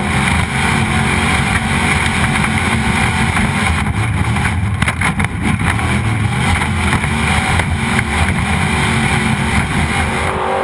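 Off-road Trophy Truck's engine running hard at racing speed, a heavy steady rumble mixed with wind and tyre noise. A rattle of sharp knocks comes about four to five seconds in.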